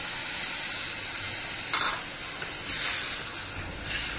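A pan of fried onions, chicken and potato sizzling steadily as thin coconut milk goes in and is stirred, with a short clink a little under two seconds in.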